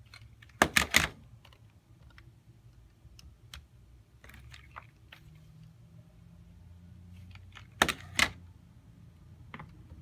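Buttons on an Axia Element broadcast mixing console being pressed: a quick cluster of sharp clicks about half a second in and another near eight seconds, with a few lighter clicks between, over a faint low hum.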